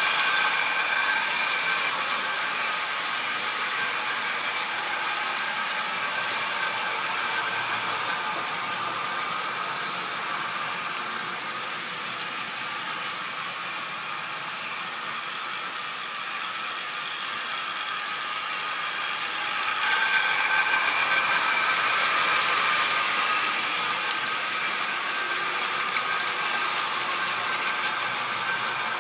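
Model railway trains running on the track: the steady whine of the locomotive motors over the rattle of wheels on the rails. The sound is louder at the start and again about two-thirds of the way through, as a train passes close by.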